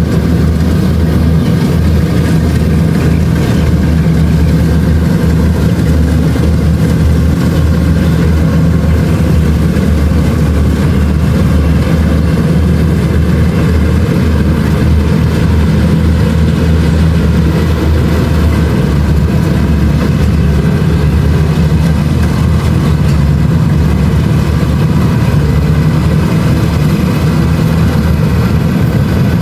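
Kubota DC-70 Plus combine harvester's diesel engine running steadily at an even pitch.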